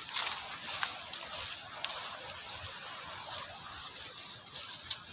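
Steady high-pitched drone of an insect chorus, continuous without a break, with a few faint clicks.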